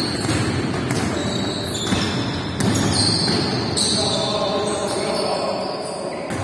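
Basketball game play on a hardwood gym court: the ball bouncing, players' sneakers squeaking several times, and voices echoing in the hall.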